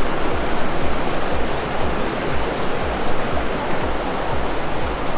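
Steady rush of flowing water, with background music laid over it that has a steady beat of about two thumps a second.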